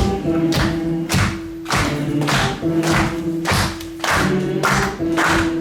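Audience clapping along on the beat, about two claps a second, over the song's music with a held low note.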